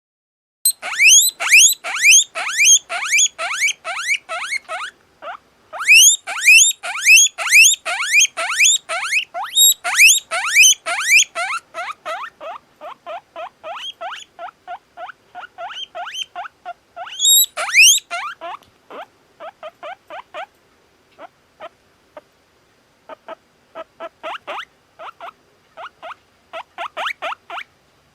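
Two-month-old male satin agouti guinea pig wheeking: a long run of high, rising whistles, about three a second. They ease into shorter, quieter squeaks in the second half, with one louder call near the middle.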